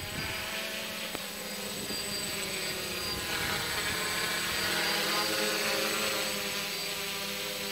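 DJI F450 quadcopter's brushless motors and propellers whining in flight, several pitches shifting up and down as it climbs and holds a hover; a little louder around the middle.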